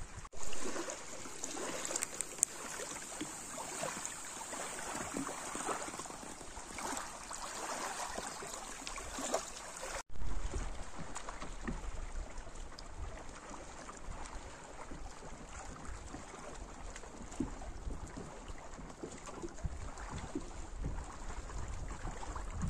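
Lake water lapping, with wind rumbling on the microphone, the rumble stronger after a cut about ten seconds in.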